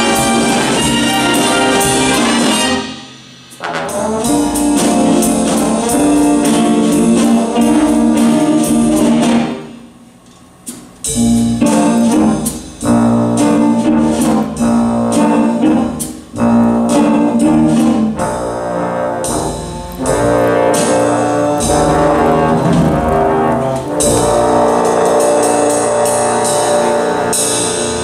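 A jazz big band playing loud full-ensemble chords, with trumpets, trombones and saxophones over drums and cymbals. The band stops short twice, about three and about ten seconds in, before coming back in.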